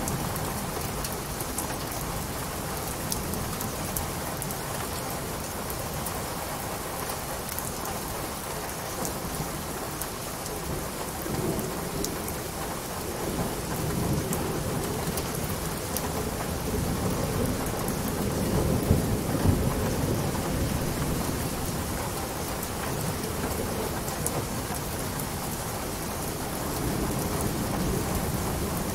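Steady rain falling, with low rumbles of thunder rolling through that build a little before halfway and are loudest a little past halfway.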